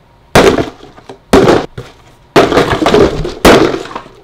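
A sword striking a hanging cardboard box, hit piñata-style: four loud, sudden hits about a second apart, each with a short noisy tail.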